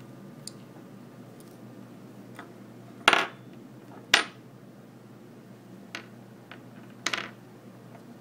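Small metal parts clicking and tapping against the opened iPhone 4's metal chassis and shield plate during reassembly: three loud, short metallic clicks about three, four and seven seconds in, with fainter ticks between them.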